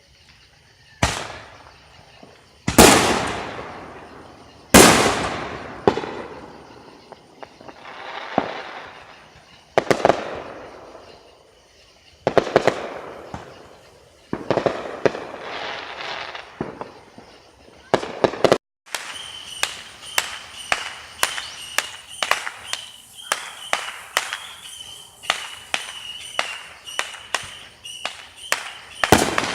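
Fireworks going off: big booming bursts a second or two apart, each trailing off in a long rumbling echo. About two-thirds of the way through they give way to a quick string of sharper cracks, about two a second.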